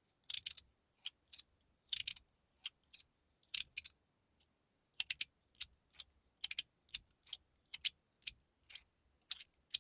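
Fidget Boy slider fidget being slid back and forth by hand, its plates snapping into place with short, sharp clicks about once or twice a second.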